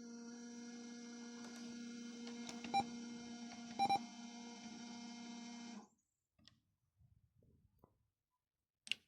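Steady electrical buzz from the car radio's bench setup, with two short clicks that each carry a brief beep about three and four seconds in. The buzz cuts off suddenly just before six seconds.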